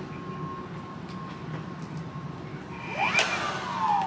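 Cordless jet-fan leaf blower briefly triggered about three seconds in: its motor whine rises sharply, then winds down in a falling whine as the fan coasts to a stop. A low steady hum lies underneath.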